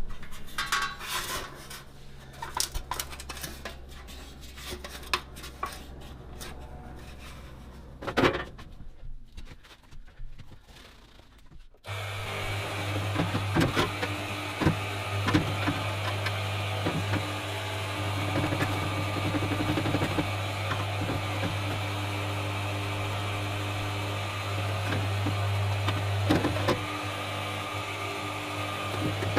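Scraping and light knocks of hand work on metal, then about twelve seconds in a power tool's electric motor switches on and runs steadily with a grinding, rasping noise over its hum.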